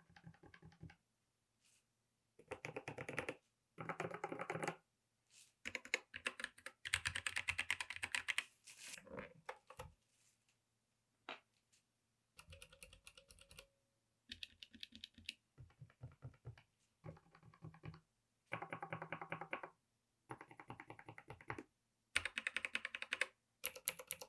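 Typing on a mechanical keyboard fitted with Gateron switches: quick runs of key clicks in bursts of a second or two, with short pauses between them.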